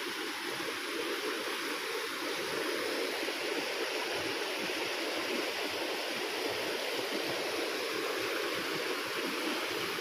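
Muddy floodwater rushing steadily down a swollen farm creek, overflowing after a heavy downpour.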